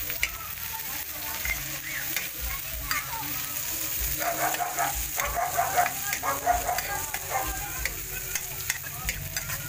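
Alibangbang leaves being sautéed with garlic and onion in a steel wok, sizzling steadily while a metal spatula stirs them, scraping and clinking against the pan.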